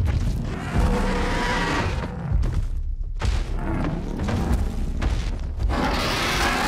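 Film sound design of a dragon: deep booming rumbles and growls over orchestral music, briefly dropping away about three seconds in.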